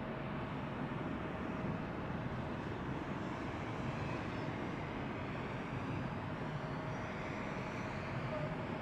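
A formation of military helicopters flying past, a steady drone of rotors and turbine engines with a faint steady tone through it.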